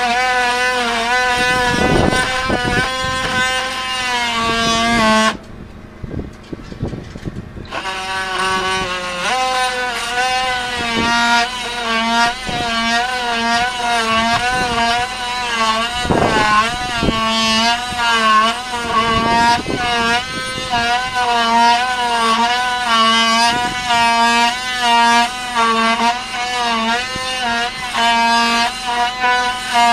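Handheld power tool running against wooden hull planking, its motor whine wavering in pitch as it loads and unloads. It stops for a couple of seconds about five seconds in, then runs on.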